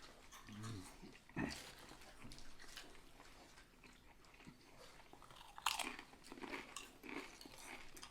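Close-up mouth sounds of someone eating a sub sandwich: chewing with wet clicks, and two sharper bites, one about a second and a half in and one near six seconds.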